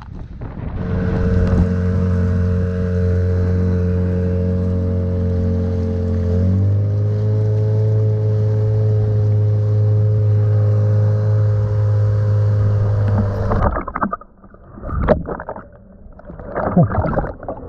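Boat motor running at a steady pitch, which shifts once about halfway through; it stops abruptly a few seconds before the end, followed by a few irregular knocks and splashes.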